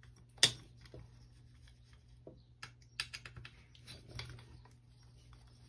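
Small clicks and taps of plastic and metal parts being handled while the tail assembly on an RC helicopter's tail boom is worked loose. There is one sharp click about half a second in, then scattered lighter clicks, over a faint steady low hum.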